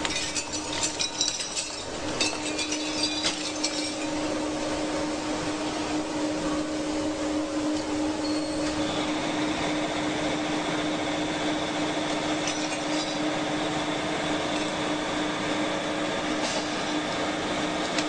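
Electric copper wire stripping machine running with a steady motor hum as a cable is pulled through and its sheath slit. Metallic clinking and rattling comes in the first four seconds, and a faint high whine joins about nine seconds in.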